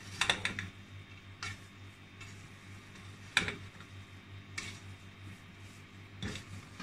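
A spatula knocking and scraping against the inside of an aluminium pressure cooker while stirring thick cooked khichdi: irregular taps, a quick cluster right at the start and the loudest about three and a half seconds in.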